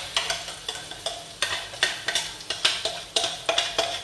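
Spatula scraping and knocking against a steel cup as blended paste is emptied into a hot wok: sharp metallic knocks, irregular, about three or four a second, over a low frying sizzle.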